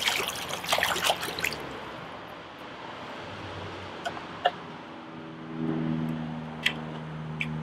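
Water splashing as the plastic test cell of a pool water test kit is rinsed out by hand in the pool, followed by a few small plastic clicks as the cell and a reagent dropper bottle are handled. From about five seconds in, a low steady hum comes in underneath.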